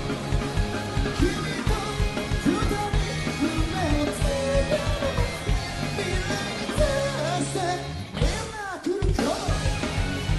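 Rock song with electric guitar, bass and drum kit. A lead line bends up and down in pitch over the steady beat, and the low end briefly drops out about eight seconds in.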